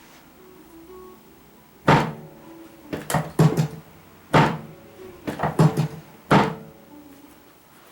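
About eleven sharp thuds and knocks from a chiropractic adjustment, some single and some in quick runs of four, each with a short low ring. Soft background music underneath.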